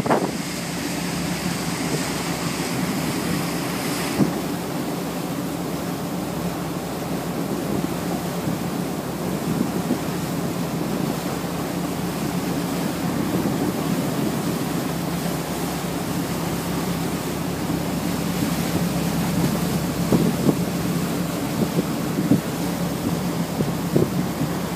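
A patrol gunboat under way at sea: the steady low drone of its engines, mixed with wind buffeting the microphone and water rushing past the hull.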